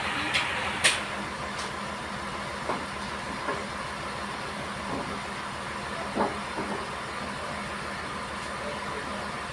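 A sawmill machine's engine running steadily, with a few sharp clicks in the first second and several light knocks over the next few seconds.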